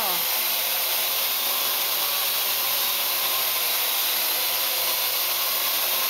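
Parrot AR.Drone quadcopter hovering, its four electric motors and propellers giving a steady, high-pitched whir with a hiss.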